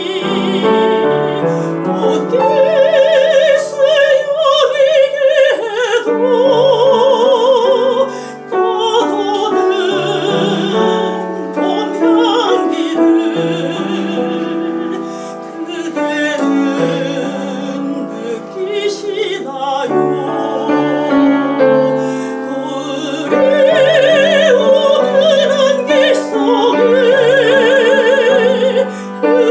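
Soprano singing a Korean art song with piano accompaniment, holding long notes with a wide vibrato.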